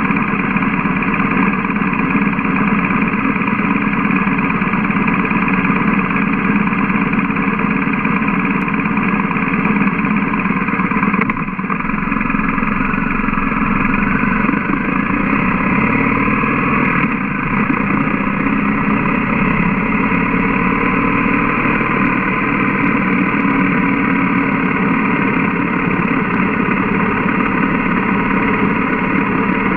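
BMW GS boxer-twin motorcycle engine, first idling while stopped, then pulling away about a third of the way in and running at low town speed.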